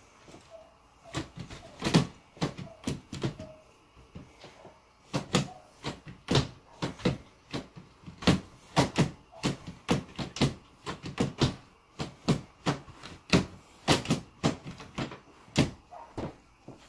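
Wooden Boori cot frame with newly fitted rails knocking and clunking, a series of sharp irregular knocks about one or two a second. They start about a second in, ease off briefly around four seconds, then carry on to near the end.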